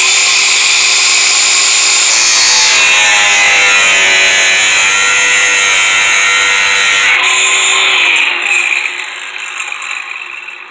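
Power tool cutting into an aluminum sliding-door track to remove a dented section, its motor pitch dipping under load. It runs loud for about eight seconds, then winds down and fades out.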